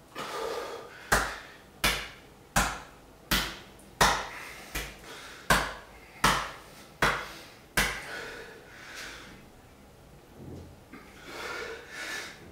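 A man beating his bare chest with his fists: about ten sharp slaps, steadily spaced a little under a second apart, with heavy breathing before and after.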